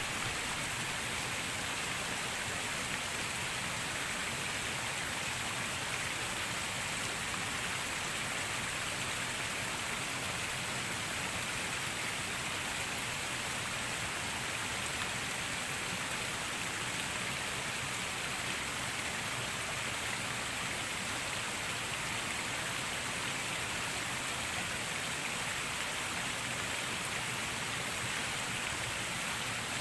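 Steady rain falling: an even hiss with nothing standing out from it.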